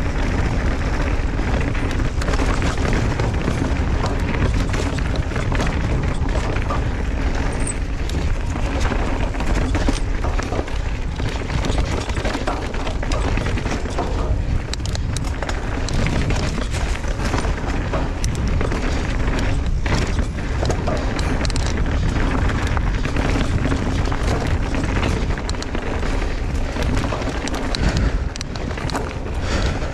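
Wind buffeting a camera microphone on a fast mountain-bike descent, with tyres rolling on the dirt trail and the bike clattering over bumps in frequent short knocks.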